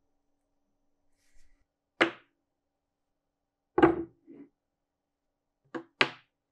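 Steel pins set down on a wooden workbench, each giving a sharp knock: one about two seconds in, another near four seconds with a smaller follow-up, and a quick pair near the end.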